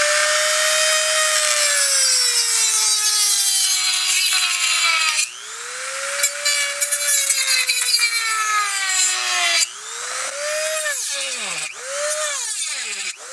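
Rotary tool cutting off the supports. Its high motor whine sags in pitch as the wheel bites and rises again when eased off: two long cuts, then a run of short quick bites near the end.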